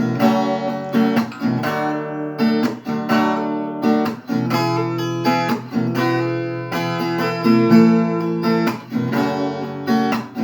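Acoustic guitar strummed in a steady rhythm of chords, an instrumental break with no singing.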